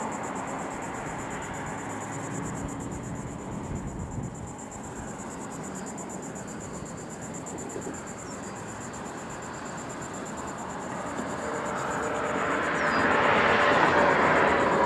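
Road traffic on a bridge: a steady rush of tyre and engine noise, with a vehicle coming closer and growing louder from about eleven seconds in. A thin, steady high-pitched buzz runs throughout.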